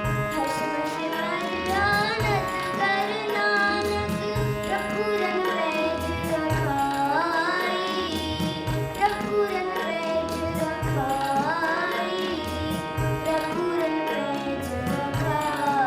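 Indian classical-style song: a voice singing a melody with ornamented pitch glides over a steady drum rhythm.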